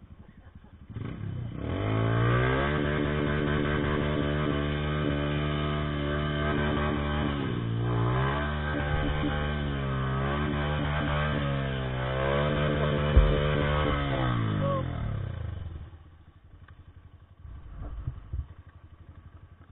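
Trail motorcycle engine held at high revs for about fourteen seconds, the pitch dipping and climbing back a few times, then dropping away near the end.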